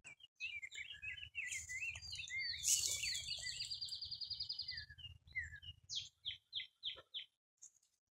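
Songbirds singing: a string of quick warbled notes, then a long rapid trill about three seconds in, then a run of short falling notes near the end, over a faint low rumble. A brief rustle of grass comes about two seconds in.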